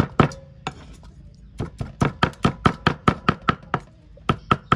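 Cleaver chopping snake meat on a thick round wooden chopping block: rapid, sharp knocks about five a second, with a pause of about a second near the start and a short break near the end.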